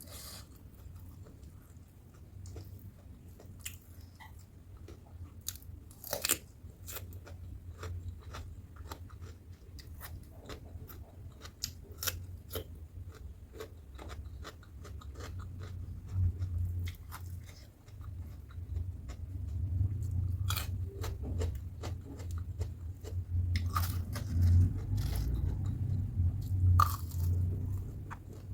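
A person biting and chewing crunchy food, crispy batter-fried tempeh and raw cucumber, with many sharp crunches over steady chewing, getting louder in the second half.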